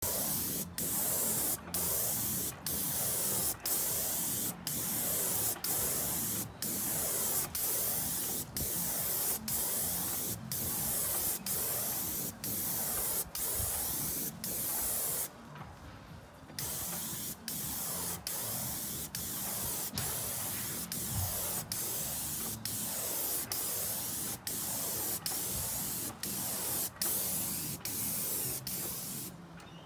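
Airless paint spray gun (Graco 695 sprayer, PC Contractor gun with a 312 tip) hissing as acrylic primer is sprayed onto a fence. It cuts out briefly about once a second between passes, pauses for about a second near the middle, and stops near the end.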